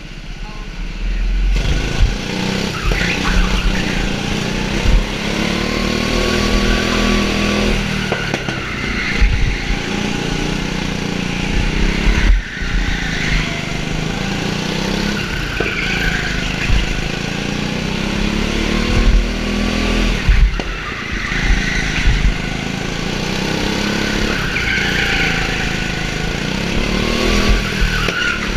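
Go-kart engine revving up and down as the kart is driven round the track, heard from a helmet-mounted camera. The revs climb and fall again and again, dropping sharply several times, with a steady low rumble underneath.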